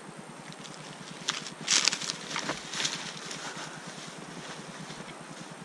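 Crunching and rustling of snow and dry brush under footsteps, with a few short sharper crackles, as a dead tree is pushed to knock off its dead top. The loudest crunch comes a couple of seconds in.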